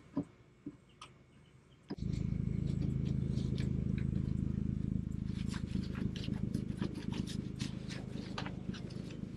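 A motor starts about two seconds in and runs with a steady low hum, easing off slightly near the end, with scattered light clicks over it.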